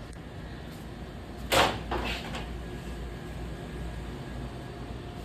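A sharp knock or clatter about a second and a half in, followed by a softer one, over a steady low hum of the store's machinery.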